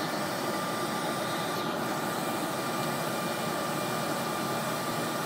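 A boom truck's engine running steadily to power the knuckle-boom crane as the boom and pallet forks move, with a thin steady whine over the running noise.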